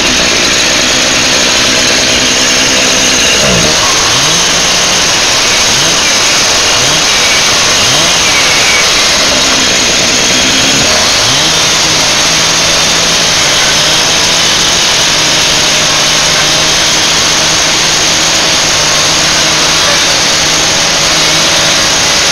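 Two-stroke chainsaw running hard while cutting through a wooden box. Its revs dip and recover about six times in the first half as the chain bites into the wood, then hold steady at a slightly lower pitch.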